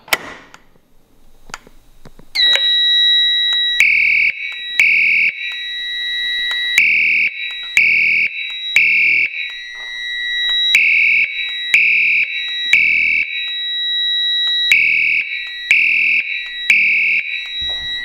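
Potter SH-120 fire alarm horn set to its electromechanical temporal tone, sounding the fire alarm in three-blast groups: three short blasts about a second apart, repeating about every four seconds, starting about four seconds in. A steady high-pitched tone starts about two seconds in and runs underneath the horn.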